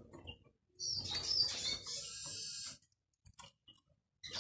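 Caged linnet twittering over a rustle and flutter of movement, for about two seconds starting about a second in; faint short clicks before and after.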